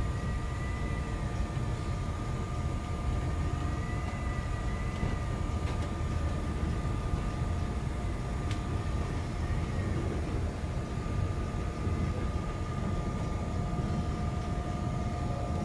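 CTA Brown Line elevated rapid-transit train heard from inside the car while running: a steady low rumble of wheels on the track with a steady motor whine. A faint wavering high tone comes twice, near the start and again about four seconds in, and there are a few faint clicks.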